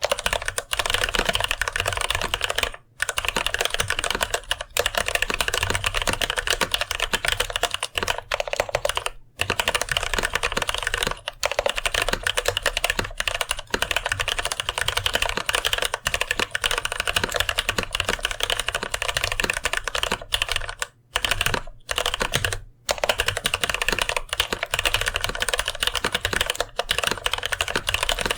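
Fast, continuous typing on a mechanical keyboard with light linear TTC Gold Pink switches in a brass plate and GMK-style keycaps: a dense run of keystroke clacks, broken by a few brief pauses.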